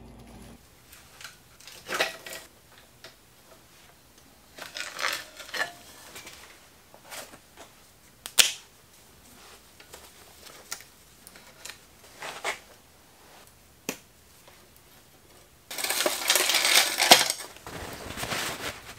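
Scattered metallic clicks and short clatters of hand tools and bicycle chain during rear-derailleur and chain removal, one especially sharp click about eight seconds in. Near the end comes a louder, two-second rustle and clatter of the steel bicycle chain being handled in a cloth shop towel.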